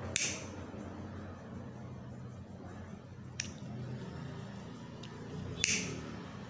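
A pocket flint lighter being struck three times: a sharp click about a second apart at first, then a few seconds between, the first and last clicks followed by a brief hiss, over a steady low hum.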